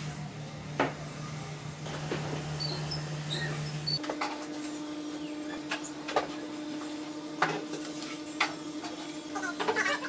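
Light taps and knocks of a wooden board, steel ruler, pencil and compass being handled on a wooden workbench, a few sharp taps spread out with a cluster near the end, over a steady low hum.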